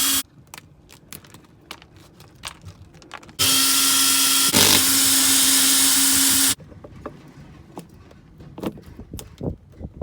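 A power drill running at one steady speed: a brief run ends just after the start, then a second run lasts about three seconds with a short catch partway through. Light clicks and knocks of handling fall between the runs.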